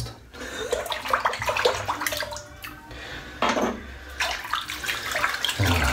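Mühle R41 double-edge safety razor scraping through lather and stubble on a scalp, in a run of quick strokes with short pauses between them.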